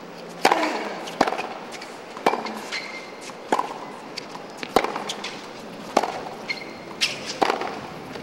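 Tennis rally on a hard court: a serve struck about half a second in, then the ball popping off the rackets and bouncing, a sharp hit about every second and a quarter, some louder than others.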